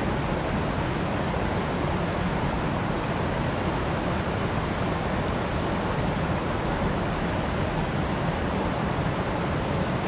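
Mountain stream rushing over rocks in small cascades: a steady, unbroken wash of water.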